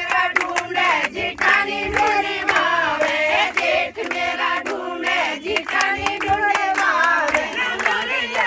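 A group of people singing a dehati (Hindi village folk) song together while clapping hands in a steady rhythm.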